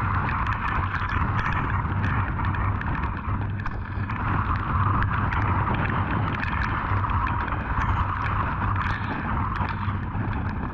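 Hurricane-force wind buffeting the microphone of a camera probe set out in the storm: a steady, unbroken rush with many small ticks of rain striking the probe.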